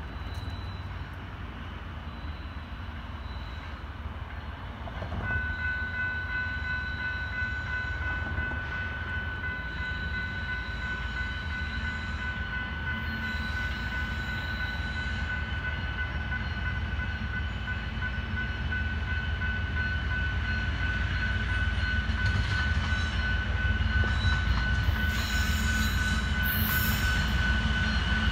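Approaching diesel freight train led by two BN locomotives: a low engine and rail rumble that grows steadily louder, joined about five seconds in by a steady high-pitched whine that holds as the train draws nearer.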